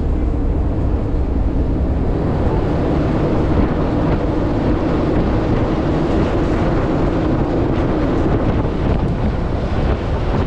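Open-air trolley bus driving along a road: steady engine and road rumble with wind buffeting the microphone through the open sides.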